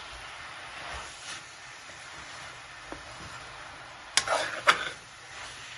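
Shredded cabbage cooking in a steel pan with a steady, quiet sizzle while a metal ladle stirs it. Near the end the ladle clanks sharply against the pan twice, half a second apart.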